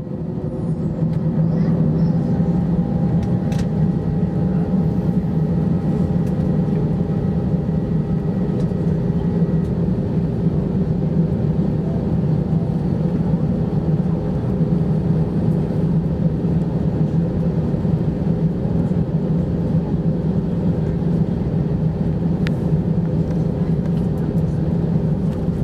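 Cabin noise of an Airbus A320-214 taxiing, heard from a window seat over the wing: its CFM56-5B engines running at low taxi thrust as a steady hum with a few faint tones above it. A couple of faint clicks are heard, once early on and once near the end.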